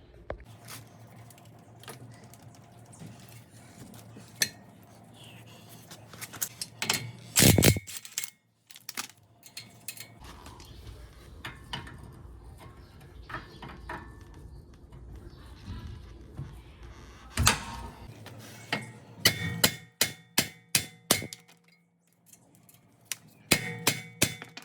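Metal tools and parts clanking and knocking while the outer tie rod end is worked free of the steering knuckle. There are a few loud knocks, and near the end come quick runs of five or six sharp ringing metal strikes.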